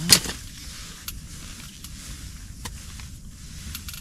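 Wind buffeting an ice-fishing tent, heard from inside as a steady low rumble. A brief sharp rustle comes right at the start, and a few faint clicks follow.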